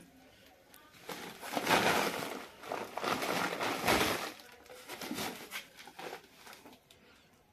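Woven plastic sacks rustling and crinkling as a puppy burrows into them, in irregular bursts that start about a second in and die away near the end.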